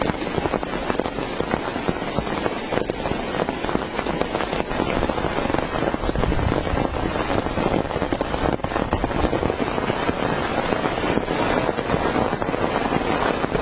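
Heavy rain falling steadily, a dense crackling patter of countless drops hitting a surface.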